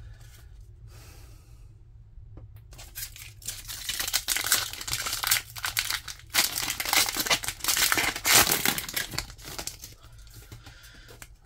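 A Pokémon trading-card booster pack's foil wrapper being torn open and crinkled by hand. The dense crackling starts about three seconds in and dies down near the end.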